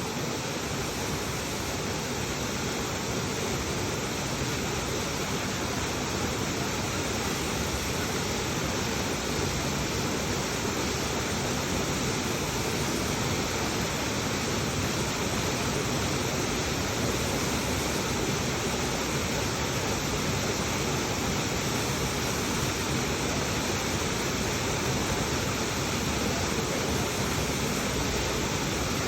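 Waterfall: a steady rush of falling water, edging slightly louder over the first half.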